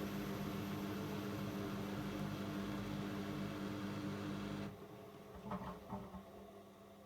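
AEG LS60840L washing machine running with a steady hum that cuts off abruptly about four and a half seconds in, as the cycle nears its end. Two brief sounds follow a second later, leaving only a faint electrical hum.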